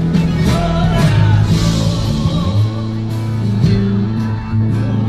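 Live band music with a steady bass line, drums and guitar.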